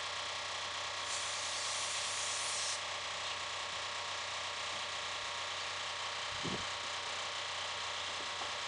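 Steady machine hum under an even hiss, with a louder high hiss for about two seconds near the start and a single low thump past the middle.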